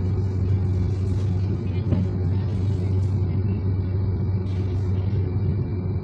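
Steady low rumble of a moving tram, heard from inside the car, with a constant hum under a haze of running noise.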